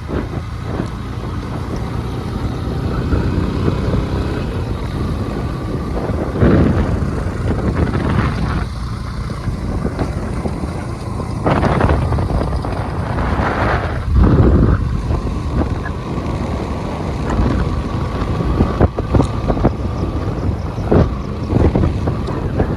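Motorcycle engine running steadily while riding on a rough off-road track, with wind buffeting the microphone in several strong gusts.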